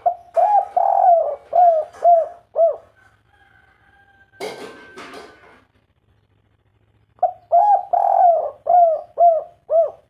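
Spotted dove cooing in the three-part 'kuk 3' song that Indonesian keepers prize. It gives two phrases of short, arched coos, one at the start and one from about seven seconds in, with a short noise between them.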